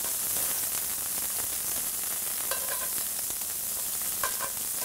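Scallops searing in very hot safflower oil in a cast iron skillet, a steady sizzle. Metal tongs move the sticking scallops, with brief metallic clinks against the pan about halfway through and near the end.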